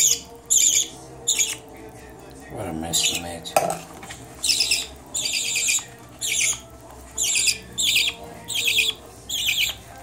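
Baby budgie's raspy begging calls, short high bursts repeated roughly every three-quarters of a second as it is hand-fed from a spoon. A brief low voice sounds about three seconds in.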